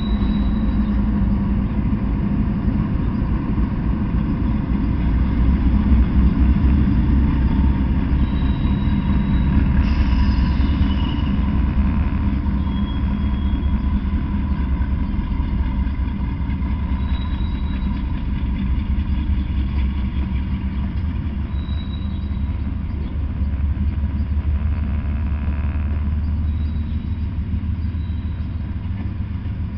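Diesel-electric freight locomotives passing close with their engines running, then loaded tank cars rolling by with a steady heavy rumble of steel wheels on rail. Brief high squeals come now and then.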